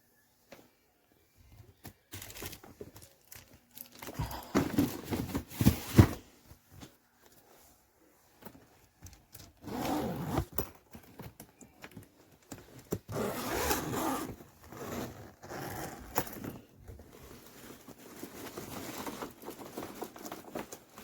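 Handling noises from a hardshell suitcase: irregular rustling and scraping in bursts, with a sharp knock about six seconds in.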